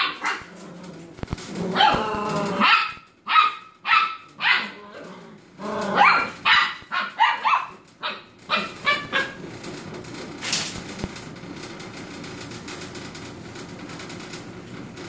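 Puppies yapping and barking in a quick run of short, high-pitched calls, which thin out and grow quieter about halfway through.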